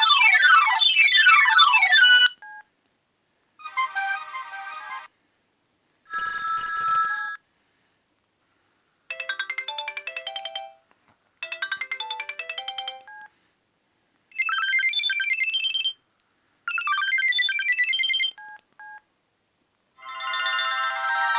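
Sony Ericsson Z600 mobile phone playing its preloaded ringtones one after another: short electronic melodies and alert tones, each one to two seconds long, with brief silences between. The first, a run of quickly falling notes, ends about two seconds in, and about seven more short tones follow, the last still playing at the end.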